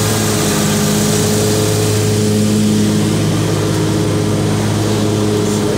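Gravely zero-turn mower's engine running steadily at a constant pitch while mowing.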